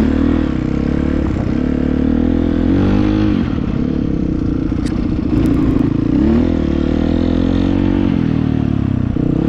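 A GPX 300R motorcycle's double-overhead-cam engine running under way on a modified open-loop fuel and spark tune. The revs climb and drop a couple of times as the throttle is worked.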